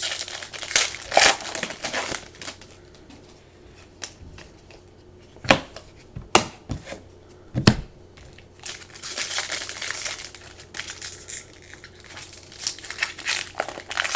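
Trading-card pack wrappers crinkling and tearing as packs are opened and cards handled, in irregular rustling bursts with a few sharp clicks in the middle.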